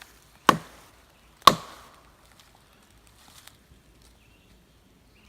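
Two loud wood knocks, wood struck hard against a tree about a second apart, each ringing briefly. It is a Bigfoot-hunting wood-knock call, made to draw an answering knock.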